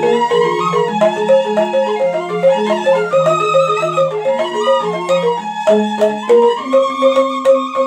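Balinese gamelan rindik ensemble: two bamboo rindik xylophones in slendro tuning struck with mallets in quick, steady runs of notes, with bamboo suling flutes holding a melody over them.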